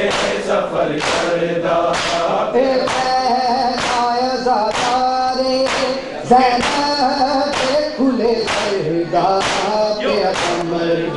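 Group matam: many men striking their bare chests with open hands in unison, a sharp slap about three times every two seconds, under men's voices chanting a noha together.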